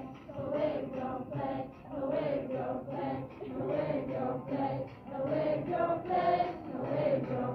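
A group of school students singing together as a choir, many young voices in phrases of held notes.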